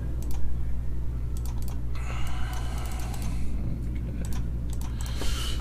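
Computer keyboard typing and clicking, in irregular scattered clicks over a steady low hum.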